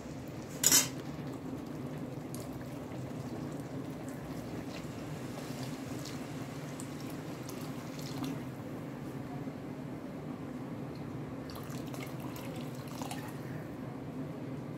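Water being added to chicken salna in a pressure cooker: a steady liquid sound throughout, with one sharp clink of a utensil under a second in.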